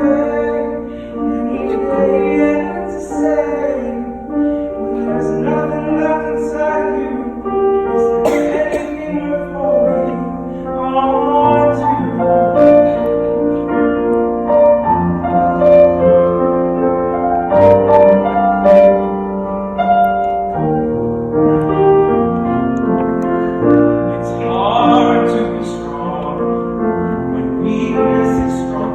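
Piano playing a song, with a singing voice coming in at times.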